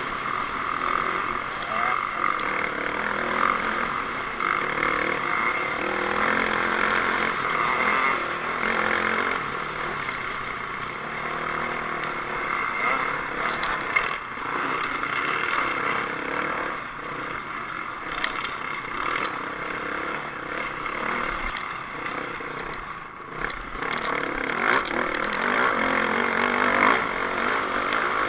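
Dirt bike engine running under changing throttle on a rough desert trail, with wind rush on the mounted camera's microphone and scattered sharp clicks and knocks from stones and bumps.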